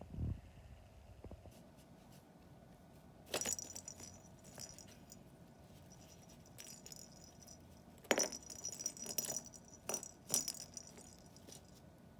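Kitten batting at the toys in a hunting box, making rattling and clinking: a short flurry about three seconds in and a longer spell of rattles from about eight to ten seconds in.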